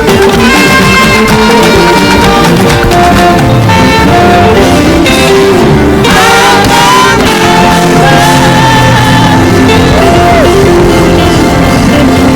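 Live gospel music played loud and continuously, with singing and some shouts over held instrumental notes.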